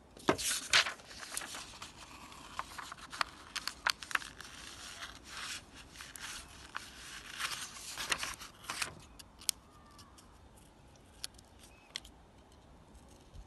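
Small scissors snipping through paper as a small shape is cut out, with the paper rustling between cuts. The snips come thick and fast, then thin out to a few scattered clicks after about nine seconds.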